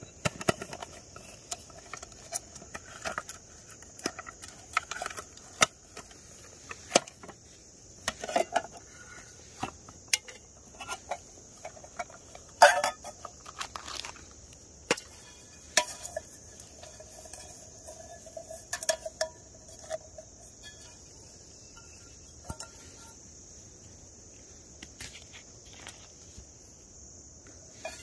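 Clicks, clinks and rustles of a camping cook pot and lid being taken out of a mesh stuff sack and set down on grass, loudest about halfway through. Crickets chirp steadily throughout.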